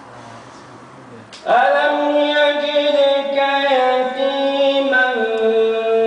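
A man's melodic Quran recitation, chanted in long held notes that step up and down in pitch. It starts suddenly about a second and a half in, after a short stretch of quiet room tone.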